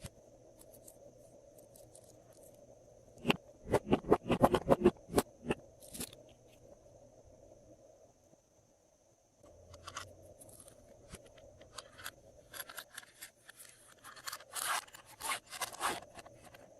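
Glossy slime being kneaded and squeezed by hand, giving sticky clicks and crackles: a quick run of them a few seconds in, then scattered ones again in the second half.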